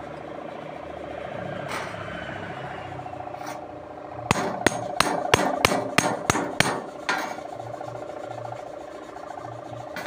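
A hammer head being knocked down onto a steel tube handle: about ten sharp metallic knocks in quick succession, starting about four seconds in and lasting some three seconds. A steady hum runs underneath.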